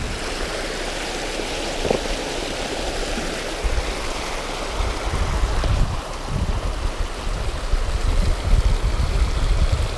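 Creek water rushing and churning over rocks below a concrete culvert: a steady rush, with irregular low rumbling from about four seconds in.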